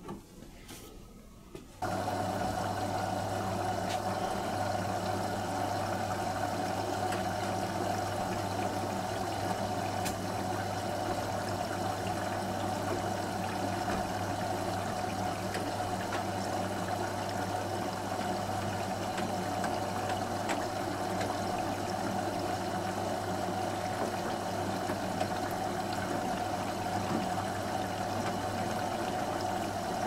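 A click as the start button on a Beko WM74155LS washing machine is pressed. About two seconds later, mains water starts rushing in through the inlet valve and detergent drawer, with a steady hum, as the machine fills for the wash.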